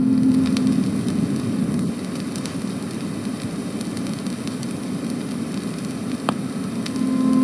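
Surface noise of an old phonograph record between tracks: a steady hiss with scattered crackles and clicks. An organ chord dies away in the first second, and another comes in near the end.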